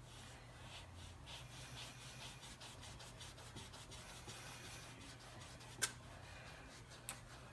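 Knife blade sawing through a boiled lint ball: faint, repeated rasping strokes, with one sharper click about three-quarters of the way in.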